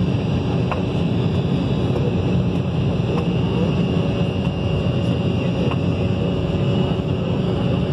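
Cabin noise of an Embraer 190 climbing after takeoff: its GE CF34-10E turbofan engines at climb power and the rush of air, a steady deep rumble with a faint steady whine above it.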